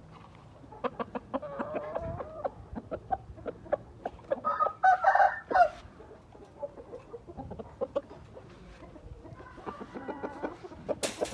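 Gamefowl chickens clucking and giving short calls, the loudest run about five seconds in, with scattered clicks and a sharp click near the end.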